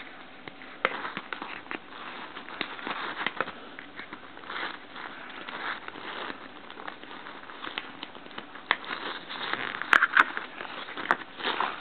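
Paper and cardboard packaging of an iPod Classic box being handled: scattered rustling and small crackles, with a couple of sharp clicks about ten seconds in.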